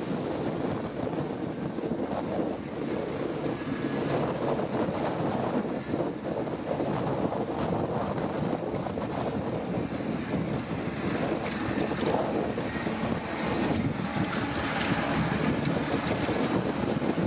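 Strong wind buffeting the microphone, over the steady drone of a Fendt 714 tractor's engine as it ploughs.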